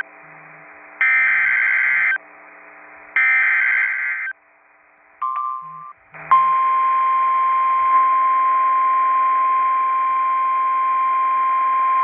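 Emergency Alert System tones on a NOAA Weather Radio broadcast. First come two second-long bursts of SAME digital header data, a second apart. Then, from about six seconds in, the steady single-pitch 1050 Hz warning alarm tone that introduces a severe thunderstorm warning.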